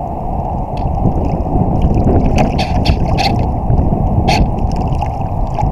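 Waves splashing and slapping against the hull of a one-metre (IOM) model yacht sailing itself through choppy water, with several sharp splashes over a steady rush of wind on the microphone.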